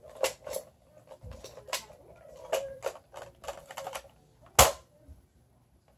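Plastic toy blaster being handled: a quick, irregular run of sharp clicks and clacks, with one loud snap about four and a half seconds in.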